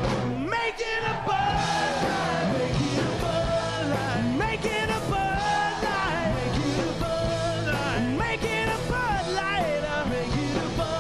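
Live rock band playing, with electric guitar and a male singer whose voice slides between notes.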